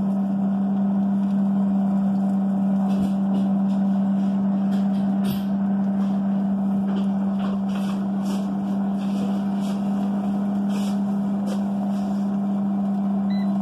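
Instant Pot air fryer oven running a rotisserie cook with a chicken turning in the basket: a steady electric hum, with a few faint ticks over it.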